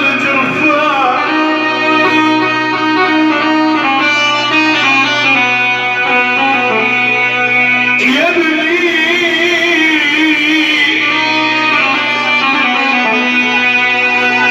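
Instrumental Middle Eastern music from a live band, led by a plucked string instrument over steady sustained tones; the arrangement changes abruptly about halfway through.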